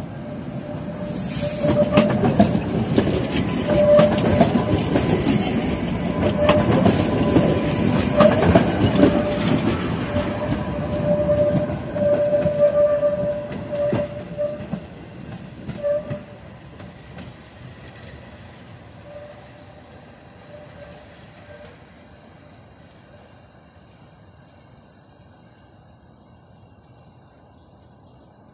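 Two coupled Tatra T5C5 trams passing and pulling away on curved track. The wheels clatter over the rail joints, with a squeal that comes and goes, and the sound dies away over the last third as the tram recedes.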